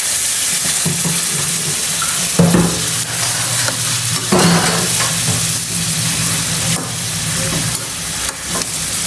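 Chicken pieces sizzling in hot oil in a wok, with a metal spatula stirring and scraping against the pan now and then. The scrapes are loudest about two and a half and four and a half seconds in.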